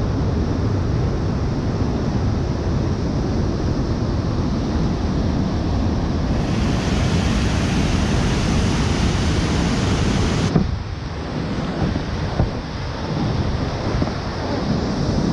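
Creek in flood: steady, loud rushing of whitewater rapids. About ten seconds in, the sound turns duller and more uneven, heard close from a kayak's camera at the lip of a drop.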